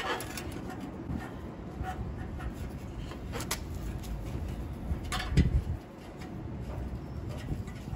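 The stock exhaust headers of a Honda CBR650R are worked loose and lowered by hand onto a soft mat. There is scuffing handling noise with a few sharp metal clicks, and a dull thump about five and a half seconds in is the loudest moment.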